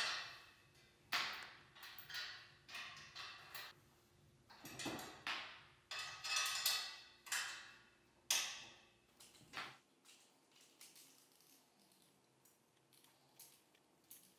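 Square metal tubes of a bed frame being fitted together at a corner joint by hand: a run of irregular metallic clinks, knocks and short scrapes, dying down to a few faint ticks after about ten seconds.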